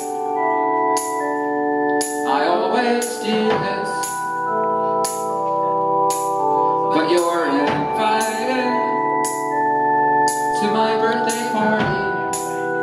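Live rock band playing: an electric keyboard holds organ-like chords over a drum kit with regular cymbal strokes.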